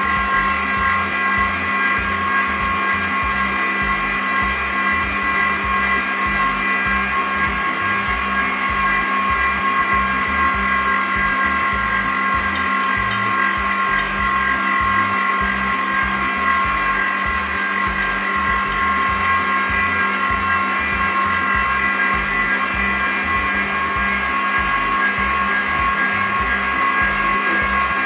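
Electric stand mixer running steadily with a high motor whine as it kneads yeast doughnut dough.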